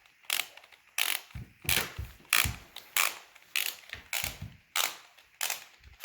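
Plastic screws in a toy dinosaur assembly kit being turned with a plastic screwdriver, making a rattling, clicking stroke with each twist, about ten strokes evenly repeated.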